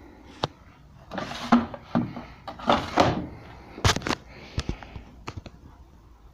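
Irregular knocks and clunks from a Hotpoint WM74 washing machine drum with worn-out bearings. They are uneven in spacing and strength, with a few short scraping sounds between them, and the sharpest pair comes about four seconds in.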